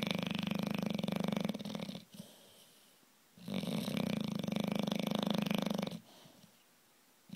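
Bulldog snoring in long, fluttering breaths about every three and a half seconds: one snore fades out about two seconds in, a second runs from about three and a half to six seconds in, and the next begins at the very end.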